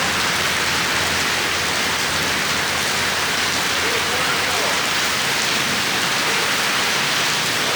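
Heavy rain pouring down steadily, a dense, even hiss of rain on the ground and the surrounding surfaces.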